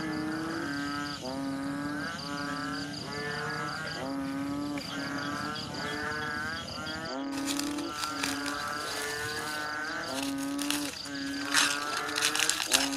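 Instrumental background music: a repeating melody of short held notes over a steady ticking beat. About seven seconds in, crinkly crackling of aluminium foil being torn open joins it, loudest near the end.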